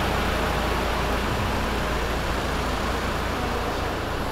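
Street traffic noise with the steady low rumble of a nearby motor vehicle's engine, easing slightly near the end.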